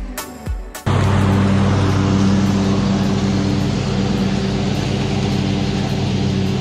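Background music with a beat cuts off suddenly about a second in, giving way to a Husqvarna YTH22V46 riding mower's V-twin engine running steadily under mowing load, with the rush of the cutting deck and bagger.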